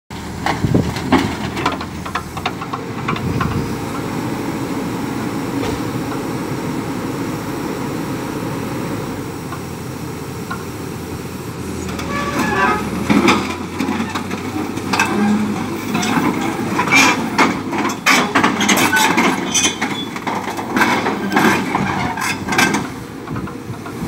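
Caterpillar forestry excavator's diesel engine running steadily. About halfway in, irregular metallic clanks and creaks begin as the boom and grapple are swung down and worked.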